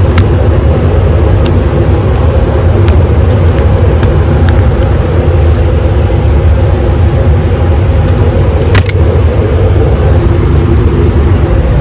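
Car driving, heard from inside the cabin: a steady low rumble of engine and road noise. A brief click comes about nine seconds in.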